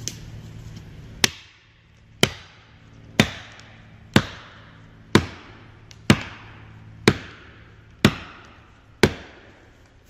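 Felling wedge being driven into a tree's back cut with about nine heavy, evenly paced blows, one a second, each with a short ringing tail. A low idling chainsaw hum fades out about a second in.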